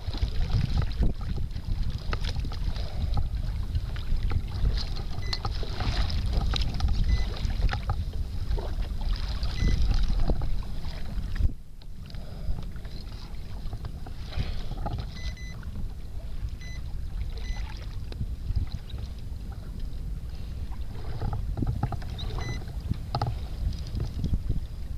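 Wind buffeting the microphone over open water, with choppy waves slapping and splashing against a kayak's hull. The rumble dips briefly about halfway through.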